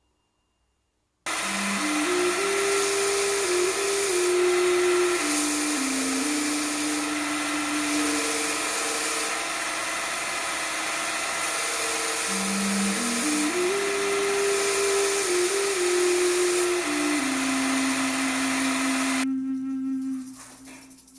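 An electric power tool starts abruptly about a second in and runs steadily, then stops sharply near the end. A slow flute-like melody plays over it and fades out after the tool stops.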